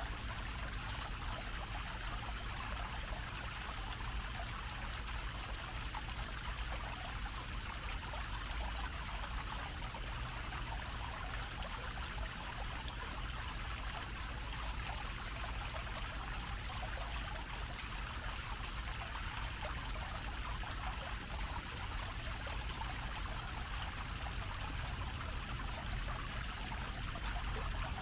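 A small fountain's low, dome-shaped water jet falling steadily onto a grated basin: a constant, even splashing of water, with a faint low rumble underneath.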